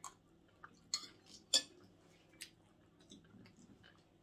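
Metal spoons clinking and scraping against china plates while eating: a few sharp clinks in the first two and a half seconds, the loudest about one and a half seconds in, then only fainter taps.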